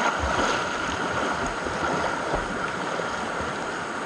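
Fast river current rushing steadily, with water splashing around swimmers close by.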